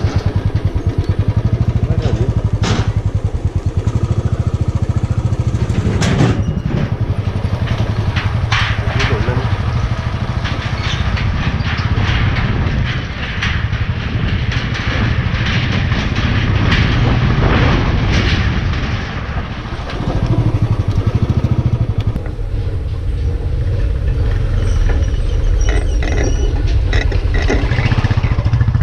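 Royal Enfield motorcycle engine running steadily at low speed. Through the middle stretch, irregular clattering and rattling as the tyres roll over the slatted steel deck of a narrow suspension bridge.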